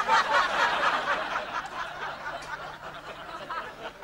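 Studio audience laughing, breaking out suddenly and slowly tailing off.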